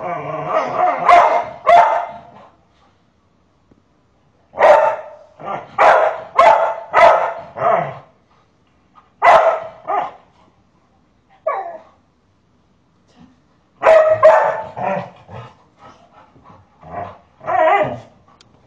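Dog barking in short sharp bursts: a run of barks at the start, about five in quick succession a few seconds in, a couple more around the middle, and another run of barks near the end.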